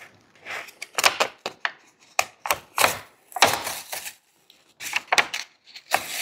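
Hard plastic casing being handled as the bottom panel of a portable power station comes off: irregular sharp clicks and knocks, some with brief scraping.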